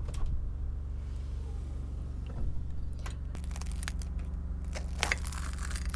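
Knife and fork cutting through a fried, syrup-soaked taş kadayıf pastry on a china plate: scattered clicks and scrapes of metal on the plate and through the crust, the loudest cluster about five seconds in.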